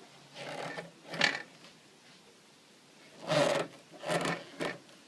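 Handling noises: a handful of short rubbing and scraping sounds, the loudest about a second in, with no motor running.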